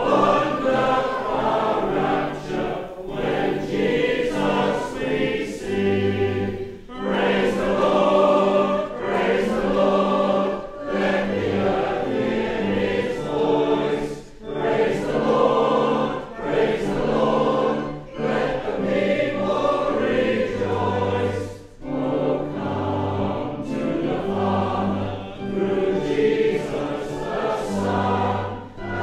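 A congregation of men and women singing a hymn together in phrases a few seconds long, over held low accompanying notes.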